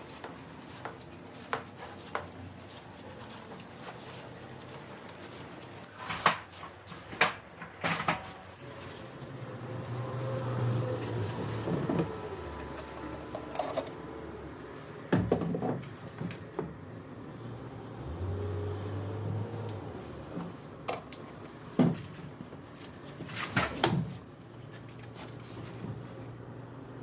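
Scattered knocks, clicks and clatter of hand work, with a low hum that swells and fades twice, in a small room.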